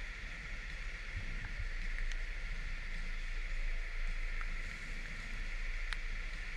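Kymco Like 125 scooter running slowly on a rain-soaked street: a steady hiss of rain and wet road over a low engine rumble.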